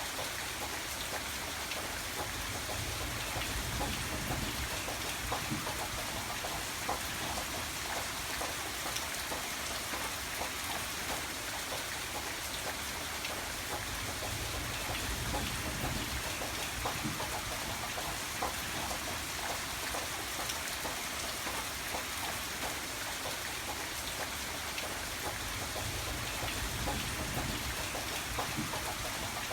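Steady gentle rainfall: a dense patter of drops on a surface, with a low rumble that swells and fades three times.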